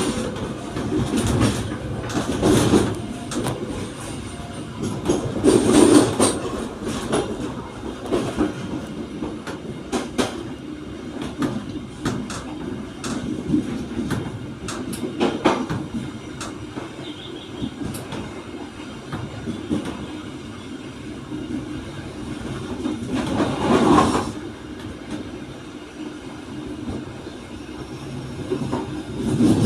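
Passenger train carriage running along the track: a steady rumble with many irregular clicks and clacks of the wheels over rail joints. It swells louder a few times, most of all about 6 and 24 seconds in.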